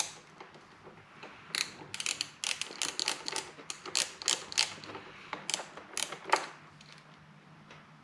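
Irregular run of sharp metal clicks and clinks from a bolt, washer and earthing strap being fitted to a motorcycle frame, with one louder clink about six seconds in.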